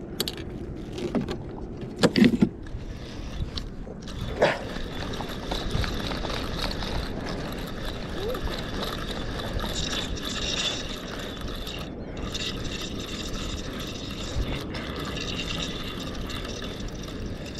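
Spinning reel being cranked steadily under load while a hooked gar is fought in, its gears whirring, with water lapping against the boat. A few sharp knocks of handling in the first few seconds.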